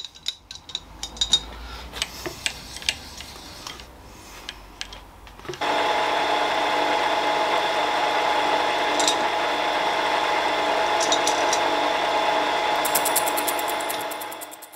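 Milling machine with a slitting saw on its spindle: a few light clicks and taps, then the mill starts abruptly about five and a half seconds in and runs steadily before winding down near the end.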